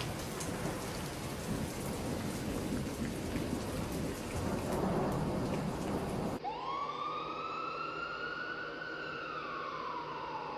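Heavy rain with thunder rumbling, cut off abruptly about six seconds in by a siren wailing in one slow rise and fall, starting to rise again near the end.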